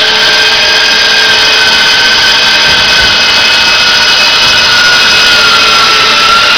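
Motor-driven net winch running with a steady, loud high-pitched whine whose pitch sags slowly a little lower.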